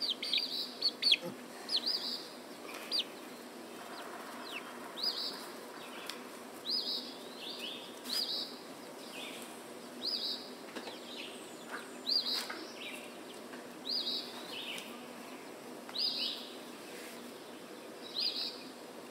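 Birds chirping: short, high calls falling in pitch, repeated every second or two, quicker and sharper in the first second.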